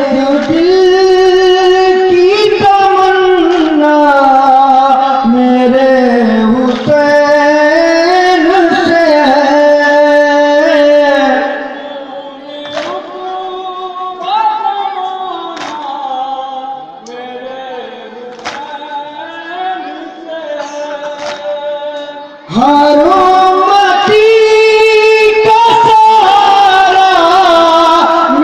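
Loud Sufi devotional singing, with voices holding long, gliding notes. About 12 s in it drops to a quieter stretch broken by sharp hits, and the loud singing comes back about 22 s in.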